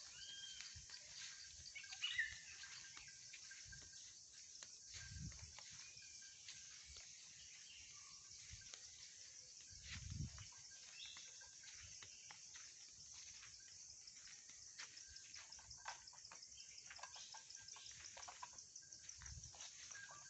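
Faint forest ambience: insects trilling steadily at a high pitch, with a few short bird chirps and three soft low thumps.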